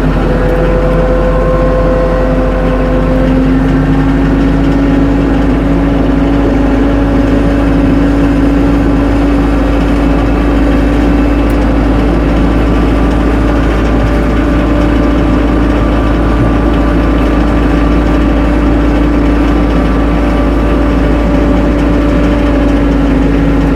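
Tractor engine running steadily with a held whine that rises slightly in pitch two to three seconds in, then stays level.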